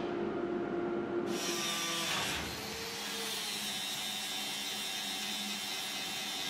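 Handheld angle grinder with an abrasive disc grinding the steel body of a 1967 Volkswagen Beetle, stripping old paint and rust. It comes in about a second in as a steady high whine over a grinding hiss.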